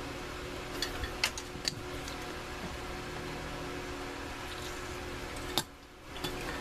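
Steady machine hum with a few light clicks and taps, and a sharper tick about five and a half seconds in; the hum briefly dips right after it.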